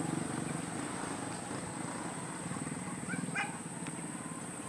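Motorbike engines running slowly in a steady low hum, with hunting dogs giving a few short barks about three seconds in.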